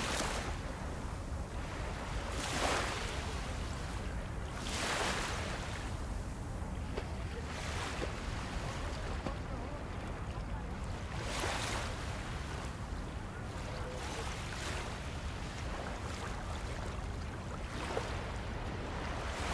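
Small waves lapping and washing onto a sandy shore, a soft swell of hiss every two to three seconds, over a steady low rumble of wind on the microphone.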